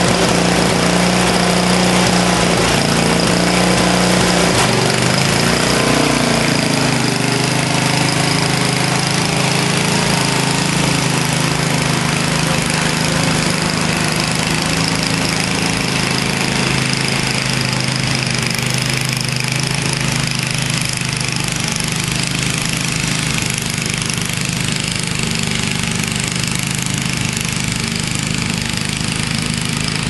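1962 Snow Bird S-262 snowblower's small engine running steadily under load as it throws snow, growing a little fainter as the machine moves away.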